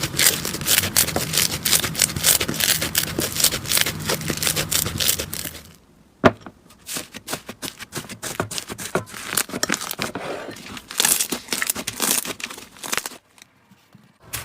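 Slime being squeezed and worked by hand, giving dense crackling and popping. It is thickest for the first six seconds, then thins out to scattered pops with one sharp pop, and breaks off briefly about a second before the end.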